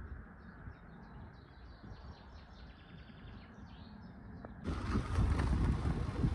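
Small birds chirping and singing over a low wind rumble on the microphone. About four and a half seconds in, the sound cuts abruptly to a much louder, steady rush of street and riding noise.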